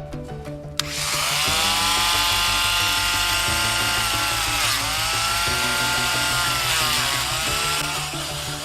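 A small high-speed power tool runs from about a second in, its whine dipping in pitch twice and easing off near the end, over background music with a steady beat.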